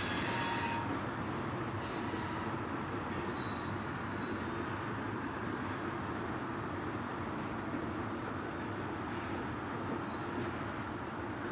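Freight train of tank cars and covered hoppers rolling past at steady speed: a continuous, even noise of steel wheels on rail.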